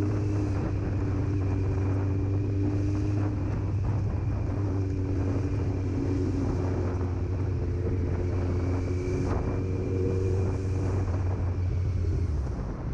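Kawasaki Z900's inline-four engine running at a steady cruise while the bike is ridden through traffic, with wind noise on the microphone. The engine note eases off briefly near the end.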